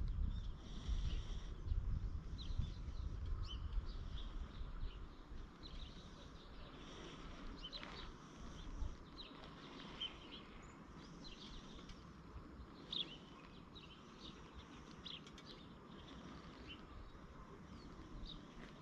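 Small birds chirping and calling in short scattered notes, with a low wind rumble on the microphone that dies away after about five seconds.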